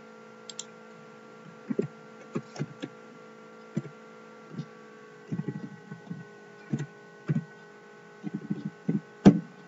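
Computer keyboard being typed on: short, irregular key clicks, the strongest near the end, over a steady electrical hum.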